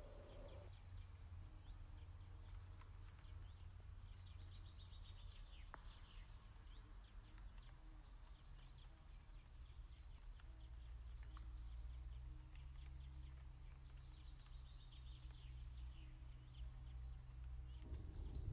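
Faint outdoor ambience: small birds chirping in short high bursts every second or two over a low, steady rumble.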